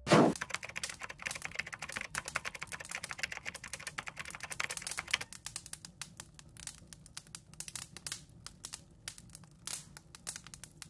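Fire crackling sound effect: a sudden burst at the start, then dense, irregular crackles over a hiss, thinning out about five seconds in.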